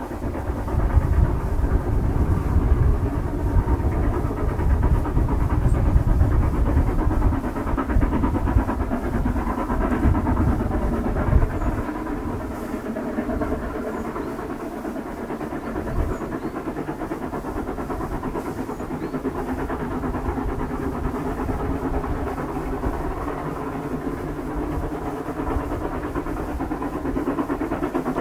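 Two steam locomotives double-heading a train up a grade, both working hard: a continuous rumble of exhaust and running train noise, louder for the first dozen seconds and then steadier and a little quieter.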